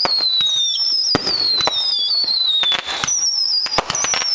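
Aerial fireworks firing shot after shot: overlapping high whistles, each falling in pitch over about a second and a half, with sharp bangs of launches and bursts in between.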